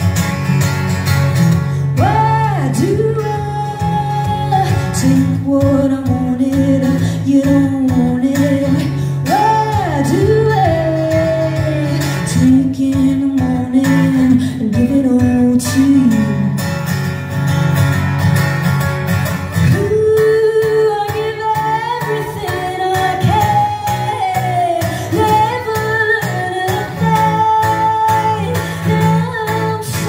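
Live music: a solo acoustic guitar strummed and picked, with a woman's voice singing over it, mostly long sliding notes with no clear words.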